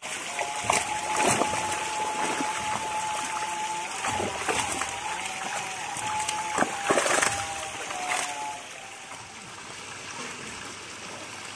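A crowd of netted fish thrashing and splashing in shallow water, with repeated sharp splashes as they are grabbed by hand. A steady thin tone runs under it, and the splashing dies down to a quieter water sound after about eight and a half seconds.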